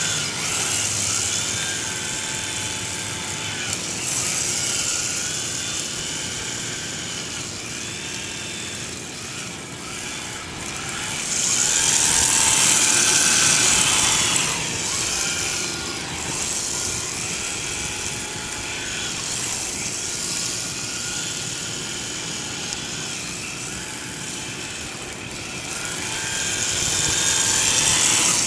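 Small electric motor of an RC drift car whining, rising and falling in pitch as the throttle is worked. Three louder stretches of high hiss come through.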